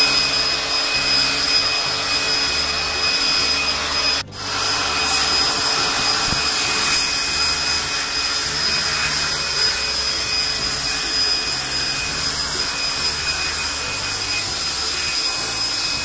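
Handheld electric blower running steadily, a rushing air noise with a steady high motor whine, blowing water off washed air-conditioner parts to dry them. The sound dips sharply for a moment about four seconds in.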